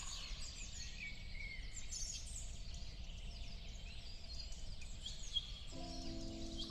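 Small birds chirping and twittering, many short high calls over a low background rumble; a steady hum of several low tones comes in near the end.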